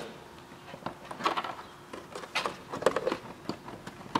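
Handling noise from wiring and plastic plug connectors being fitted on a car door's plastic inner carrier: a series of short clicks and rustles at irregular moments.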